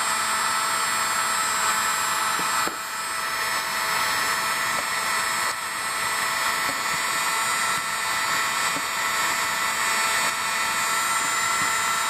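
Heat gun running steadily, blowing hot air with a fan whine over a rush of air, as it melts HDPE plastic packed into a socket mold.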